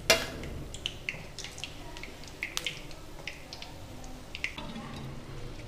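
Hot oil crackling and popping in scattered short ticks around sweet wheat-flour bondas deep-frying in a kadai, with one sharp click at the start.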